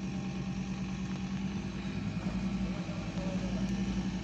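A vehicle engine running steadily at low revs with an even pulsing hum, getting a little louder in the second half.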